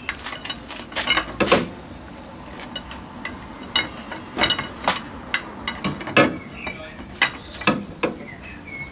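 Socket ratchet clicking and steel tools clinking in a string of irregular sharp strokes as a front driveshaft hub nut is tightened on a classic car. The nut had not been done up tight enough, the cause of the wheel trouble.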